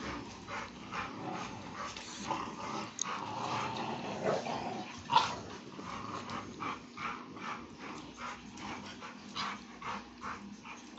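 Dogs playing, with play-growling and whimpering in a run of short repeated bursts. One sharp, louder sound comes about five seconds in.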